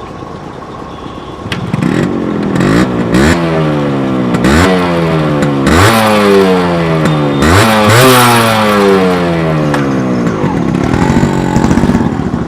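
Yamaha RX100's two-stroke single-cylinder engine running low, then revved sharply four or five times, each rev sinking slowly back before the next, then easing off near the end.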